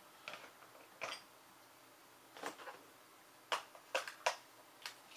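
Small clear plastic storage boxes with snap latches being handled and set down on a granite tile: a scatter of light plastic clicks and knocks, the sharpest three coming close together past the middle.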